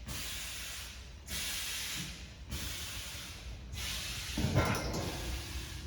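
Pneumatic valves of an aerosol can filling line venting compressed air in repeated hisses about a second long, separated by short gaps, as the machine cycles. A louder low knock comes a little past the middle.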